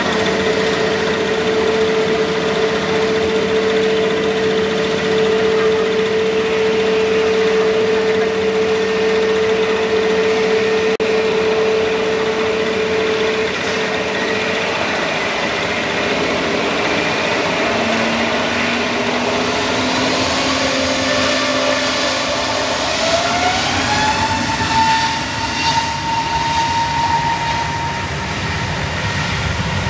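Jet airliner engines running with a steady whine over a loud roar. About two-thirds of the way through they spool up, the whine rising in pitch and then holding at a higher note.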